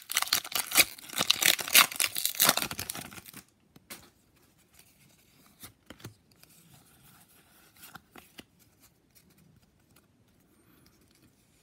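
Foil Pokémon card booster pack being torn open and crinkled for about three and a half seconds, then faint sliding and flicking of the cards as they are handled.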